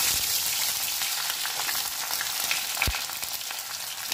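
Sliced onions sizzling in hot mustard oil in a kadai, a steady dense hiss as they are stirred with a spatula. There is a single knock about three seconds in.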